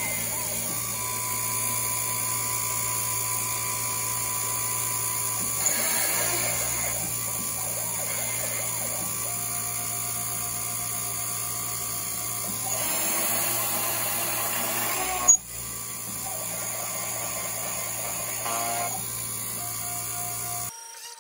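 Taig CNC mill's spindle running at high speed with a steady high whine while a small end mill cuts into an aluminium plate. The cutting noise swells louder several times as the tool moves through its passes, and there is one sharp click about fifteen seconds in.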